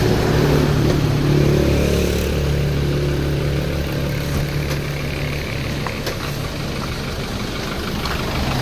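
Hyundai Starex's D4CB 2.5-litre four-cylinder common-rail diesel engine running steadily, its pitch shifting slightly a couple of times.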